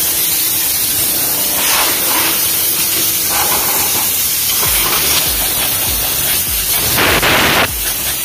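Compressed-air blow gun on a yellow air hose, hissing steadily as it blows dust out of a car's boot, door seals and seats, with a stronger blast about seven seconds in.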